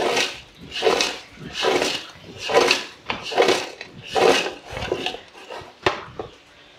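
A heap of crisp fried bajji fritters tossed in a large aluminium pot, about seven tosses roughly one a second, each a swell of the fritters rattling and sliding against the metal. Near the end the pot is set down on the floor with a sharp knock.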